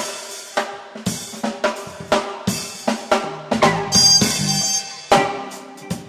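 Background music with a steady drum-kit beat of snare, bass drum and cymbals over pitched instruments.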